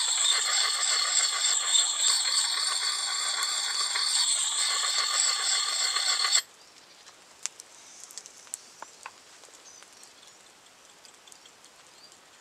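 An oiled Lansky axe puck rasping against an axe's steel edge in quick, continuous honing strokes, stopping abruptly about six seconds in. After that, only a few faint clicks.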